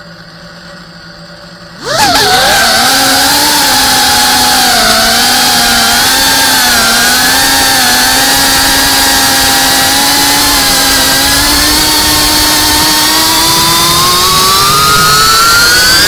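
GEPRC Cinelog 35 cinewhoop's motors and propellers, idling with a low hum, then throttled up about two seconds in to a loud, steady whine for takeoff and flight. The pitch wavers with the throttle and climbs near the end.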